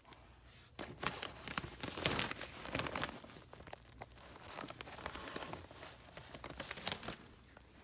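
Pet stroller's fabric rustling and crinkling as it is handled and turned, in irregular bursts with a few sharper scrapes, starting about a second in and dying away near the end.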